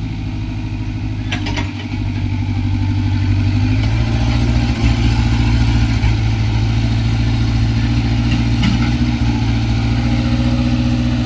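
Sumitomo excavator's diesel engine running steadily, picking up load about two seconds in and holding at higher revs, with a couple of brief metallic clicks.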